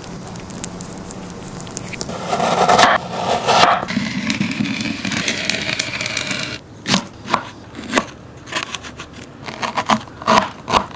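Kitchen cooking sounds: scraping and crackling that grow loud from about two seconds in and hiss on until past the middle, then a series of separate sharp knocks on a hard surface.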